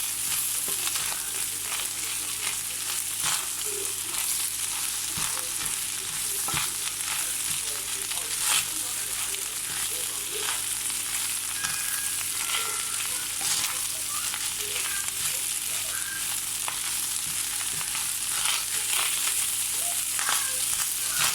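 Rice and vegetables sizzling as they are stir-fried in a pan, with the stirring utensil scraping and knocking against the pan many times.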